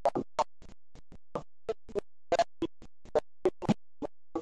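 A caller's voice on a breaking-up phone or internet line. His speech is chopped into many short fragments with sudden dropouts between them, so it stutters and glitches like scratched audio: the sign of a bad connection.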